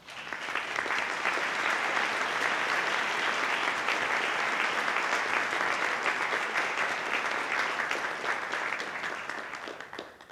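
An audience applauding with many hands clapping, building up over the first second and dying away near the end.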